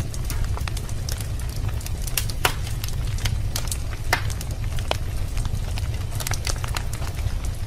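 Wood fire burning in a fireplace, crackling with irregular sharp pops and snaps over a steady low rumble of the flames.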